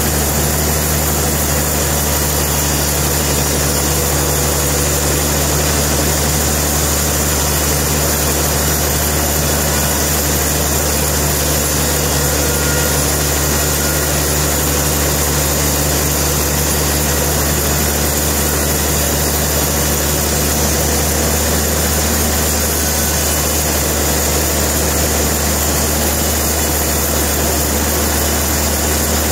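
Sawmill machinery running steadily, a constant low hum and drone that holds the same pitch and level throughout.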